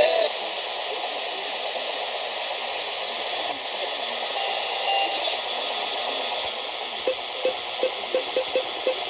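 NOAA weather radio speaker hissing with static, with no voice coming through. About seven seconds in, a quick run of short, evenly spaced low pulses starts, about three a second.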